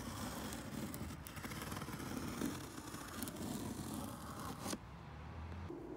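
A scissors blade slitting open a cardboard box along its seam: a continuous rasping scrape with small clicks, which stops abruptly about three-quarters of the way through.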